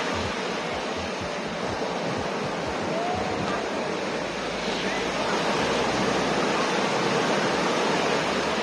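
Ocean surf washing onto a beach: a steady rush of waves with no distinct single break.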